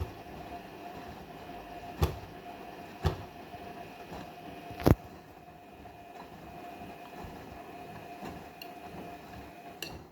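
Washing machine running with its drum turning and a steady motor whine, while the load knocks against the drum a few times, loudest about five seconds in. The sound cuts off suddenly at the end.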